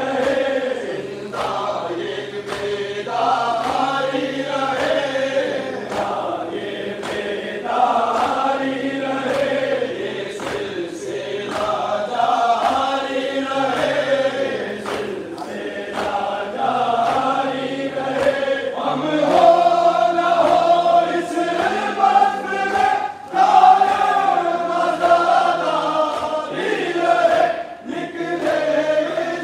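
A large group of men chanting a Muharram mourning lament (noha) in unison, with sharp chest-beating strikes (matam) landing about every second or so.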